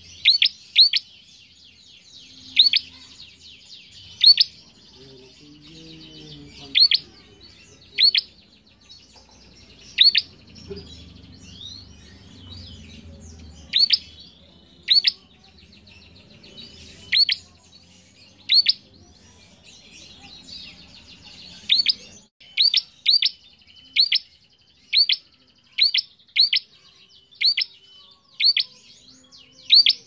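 Caged prenjak giving short, sharp chirps, each a quick downward-sweeping note. They are repeated every second or two, and come faster in the last third.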